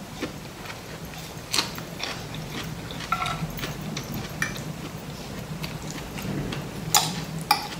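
Chewing with scattered light clicks of a metal fork and spoon against a china plate, two sharper clinks near the end, over a low steady hum.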